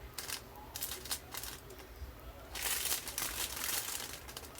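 Small plastic bags of diamond-painting drills crinkling as they are handled, with short clicks and a longer rustle about two and a half seconds in.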